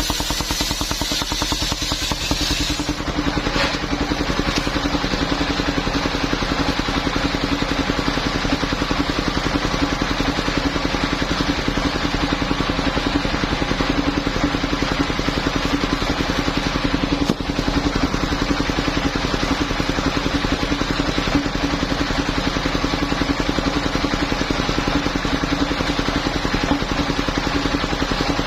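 The engine driving a portable circular-saw sawmill, running steadily with an even fast pulse. A high hiss rides over it for the first three seconds and then stops.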